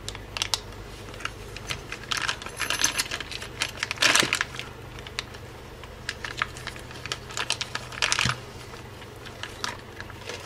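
Clear plastic bag crinkling and rustling as it is unwrapped from a machined aluminium discone antenna hub, with light metallic clicks and clinks as the metal parts knock together and are set down. The loudest rustle comes about four seconds in.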